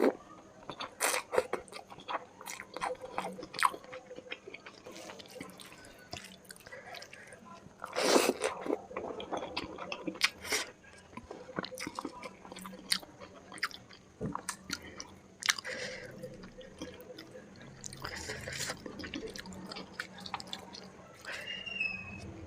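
Close-miked ASMR eating of chicken curry with rice: chewing with many short mouth smacks and clicks, and a few louder crunchy bites.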